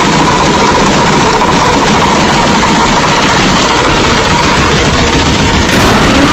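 Car engine idling loudly through its exhaust, a steady, even rumble.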